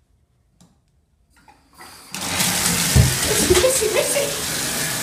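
Bathtub tap turned on about two seconds in: water gushing steadily from the spout into the tub.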